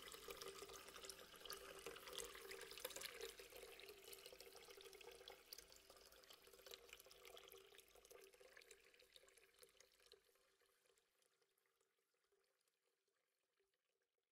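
Near silence: the faint tail of an electronic dance track fading out, a crackly hiss over a low held tone, dying away about ten seconds in.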